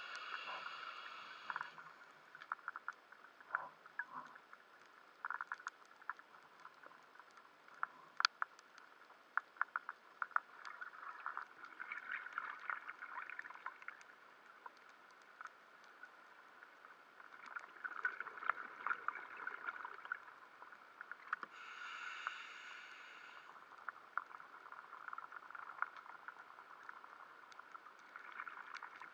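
Underwater ambience picked up by an action camera in its waterproof housing: a steady muffled hiss with many scattered crackling clicks. It swells a few times, and a brief brighter rushing burst comes near the start and again about two-thirds of the way through.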